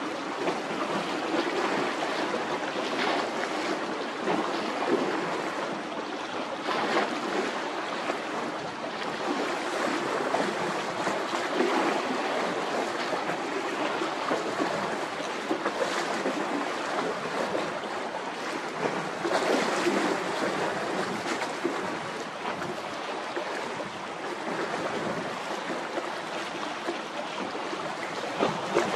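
Strong wind buffeting the microphone over the wash of wind-driven sea waves: a continuous rushing noise that swells and eases in irregular gusts.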